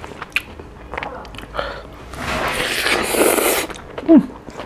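Close-miked eating sounds from a man eating rice and octopus curry by hand: scattered lip smacks and chewing clicks, a loud rushing, breath-like sound lasting over a second about two seconds in, and a short vocal grunt falling in pitch near the end.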